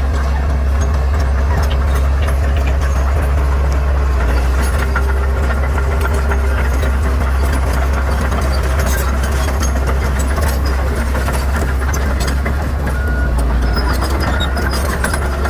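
Bulldozer's diesel engine running steadily with a deep, even drone, with scattered short clicks and cracks over it.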